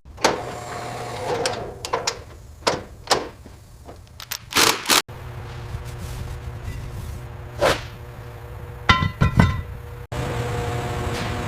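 A series of sharp knocks and clunks, with three quick ringing metallic hits about nine seconds in, over a steady hum that cuts off abruptly twice.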